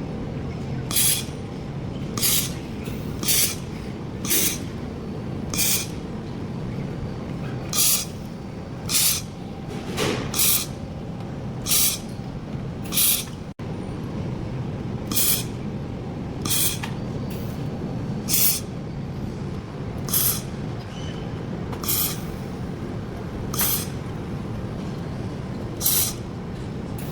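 Platform laser galvanometer spot welding machine welding stainless steel: a series of short hissing bursts, one every one to two seconds, each a spot weld, over the machine's steady low hum.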